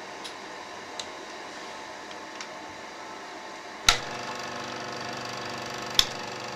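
Revue Lux Sound 550 Super 8 sound projector (built by Eumig): a few faint ticks, then a sharp switch click about four seconds in as its motor starts running with a steady hum. A second sharp click comes near the end while the motor keeps running.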